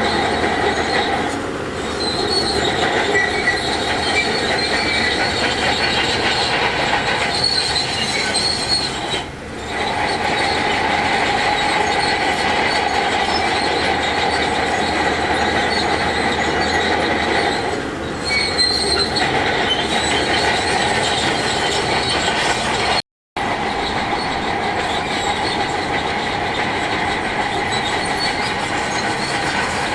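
Heavy earthmoving machinery running under load, a diesel engine under a steady, high metallic whine. The sound eases briefly a few times and cuts out for an instant about two-thirds of the way through.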